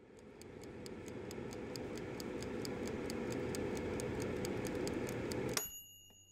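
Steady mechanical ticking, about four to five ticks a second, over a hum that swells up. About five and a half seconds in, it all cuts off suddenly with a sharp, bell-like ding that rings on.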